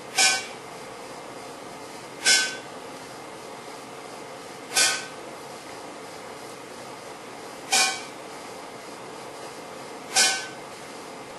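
Wide-gap spark chamber firing five sharp spark cracks at irregular intervals of about two to three seconds, over a steady background hum. Each crack is the 300 kV Marx generator discharging a foot-long spark through the neon-filled box, along the track of a cosmic-ray muon that has just passed through.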